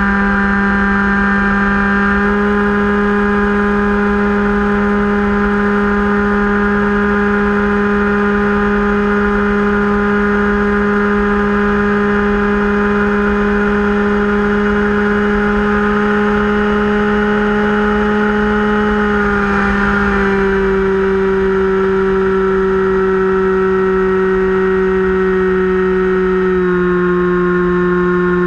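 Finwing Penguin's electric brushless motor and pusher propeller heard from the onboard camera, a steady whine that climbs slightly in pitch, then steps down about twenty seconds in and again near the end. Low wind rush on the microphone runs under it.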